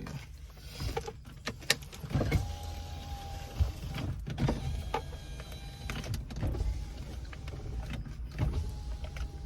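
Steady low rumble of a car's cabin, with scattered sharp clicks and knocks, and a steady whine heard twice, about two seconds in and again near the end.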